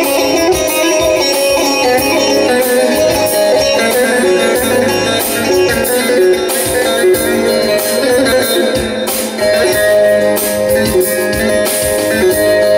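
Electric bağlama (long-necked Turkish saz) picked rapidly with a plectrum, playing an instrumental folk melody over held keyboard notes.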